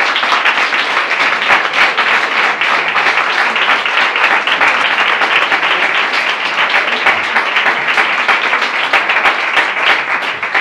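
Audience applauding, a steady burst of many hands clapping that begins to thin out near the end.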